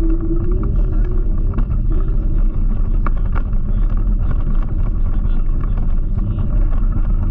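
Wind buffeting the microphone and tyre rumble while riding an electric scooter: a loud, steady low rumble. A faint steady whine fades out about a second in.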